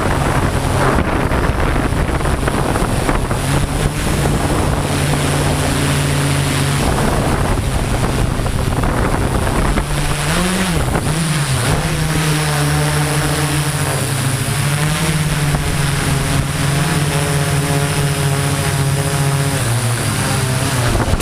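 Multirotor drone's electric motors and propellers running in flight, a steady buzzing hum likened to an upside-down lawnmower, with wind noise over it. The pitch dips and rises briefly about ten seconds in as the motors change speed.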